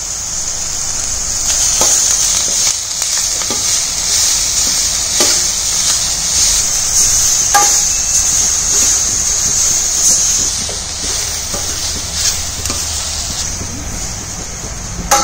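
Grated carrot, onion and capsicum sizzling in hot oil in a stainless steel kadai, stirred with a steel ladle that scrapes and knocks against the pan now and then. The sizzle is a steady hiss that eases a little after about ten seconds.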